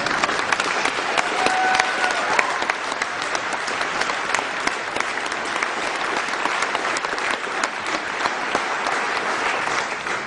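Audience applauding: many hands clapping at a steady level, dying away near the end.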